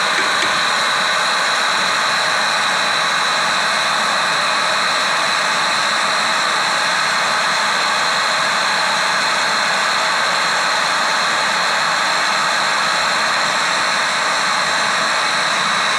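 Gas brazing torch flame hissing steadily while a copper refrigerant line on a replacement refrigeration compressor is brazed.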